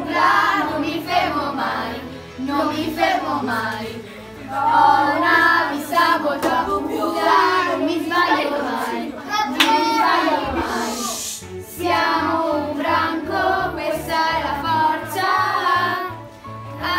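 A group of children singing a song together, with musical accompaniment.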